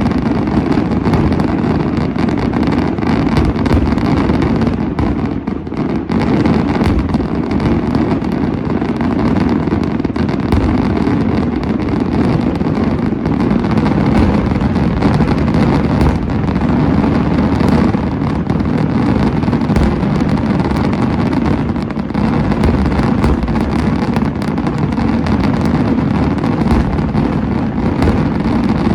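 Daylight fireworks barrage from a Senatore Fireworks display: rapid bangs and crackles fired in a dense, unbroken string with no pause between them.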